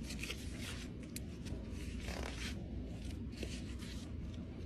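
Paper banknotes being counted out by hand, bills flicked and laid down one after another in irregular papery rustles and snaps, over a low steady background hum.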